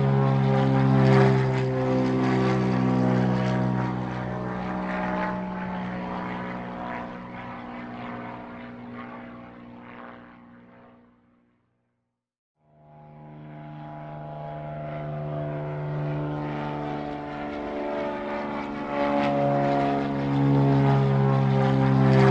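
Propeller airplane flying by: a droning engine with a stack of steady tones fades away over about ten seconds and cuts to a second of silence, then another pass builds up again until loud near the end.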